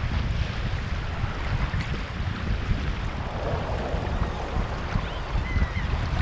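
Wind buffeting the microphone over the steady rush of a fast, choppy river.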